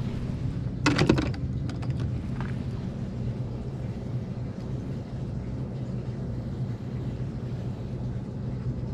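Lead fishing sinkers clatter briefly about a second in, as a spiked Sputnik sturgeon sinker is picked out of a bin of sinkers, with a few lighter clicks just after. A steady low hum runs underneath.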